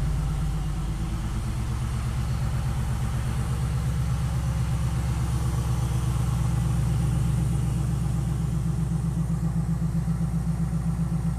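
LS-swapped V8 car engine idling steadily with an even, rhythmic pulse, already settled at its normal low idle after a start that was not fully cold.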